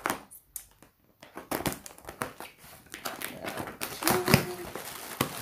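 Parcel packaging being torn and crinkled open by hand: irregular rustling and crackling of plastic and tape, with a short squeak about four seconds in.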